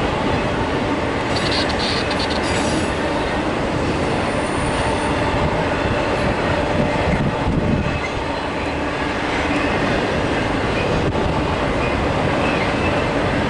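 Norfolk Southern intermodal freight train's double-stack container cars rolling past in a steady rumble of wheels on rail, with thin high wheel squeal over it and a brighter screech about a second and a half in.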